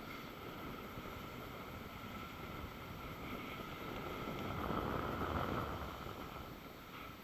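Skis hissing and scraping over snow while wind rushes across the microphone, a steady rushing that swells louder for a second or so just past the middle.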